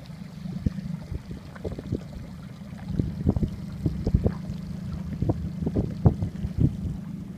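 Small boat on the sea: a steady low rumble with frequent irregular slaps and splashes of water against the hull.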